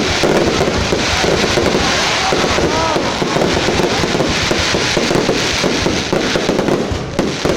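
Fireworks going off continuously in a dense, crackling run of many sharp reports.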